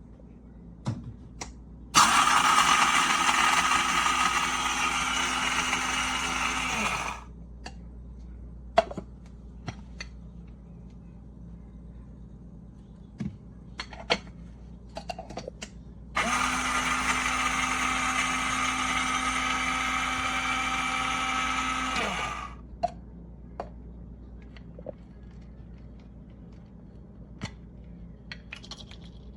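IHOM cordless electric blade grinder's motor and stainless steel blade running in two bursts, about five and six seconds long, each winding down with a falling pitch as it stops. Light clicks and taps of handling between the runs.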